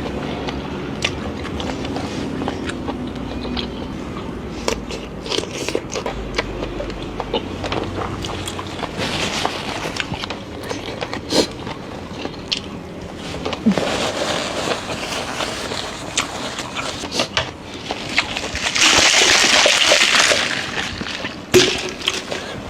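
Rustling, scraping and scattered clicks of things being handled, with a louder rush of noise lasting about two seconds near the end.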